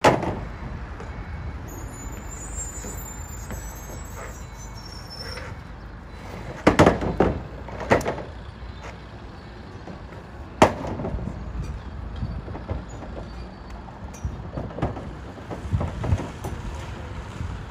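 Heavy temporary flooring panels knocking as a crew sets them down onto a raised floor: a handful of loud, sharp knocks, a cluster about seven seconds in and single ones near eight and eleven seconds. A steady low rumble runs under them.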